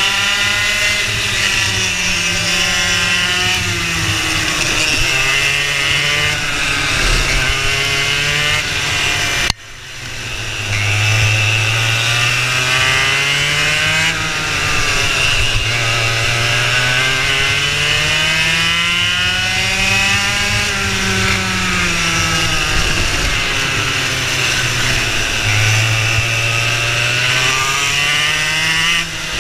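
Racing kart engine heard on board, its pitch rising and falling over and over as the kart speeds up and slows for corners. The sound drops out abruptly for a moment about nine and a half seconds in.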